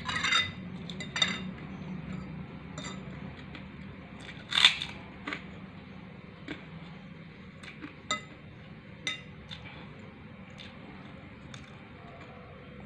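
Scattered clinks of a metal utensil against kitchenware, about a dozen at uneven intervals, the loudest about four and a half seconds in. A low steady hum underneath fades out over the first half.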